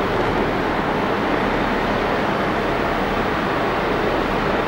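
Steady roar of jet aircraft noise across the airport apron, even and unbroken, with no single event standing out.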